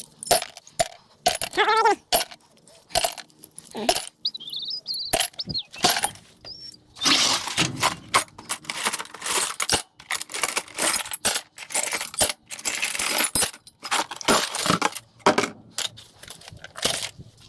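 Pieces of scrap brass and copper clinking and clattering as they are handled and tossed into a bucket: many sharp metallic clinks at an irregular pace.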